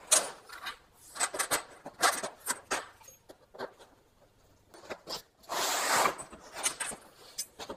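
Thin steel strapping and tin snips being handled on a wooden board: scattered light clicks, taps and scrapes, with a longer rasping scrape about three-quarters of the way through.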